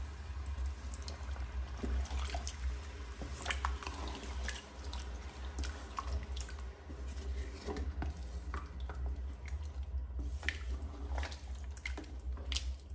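Wooden spatula stirring mutton pieces through thin, watery curry in an aluminium pressure cooker: irregular sloshing and liquid splashes with scattered clicks of the spatula against the pot, over a steady low hum.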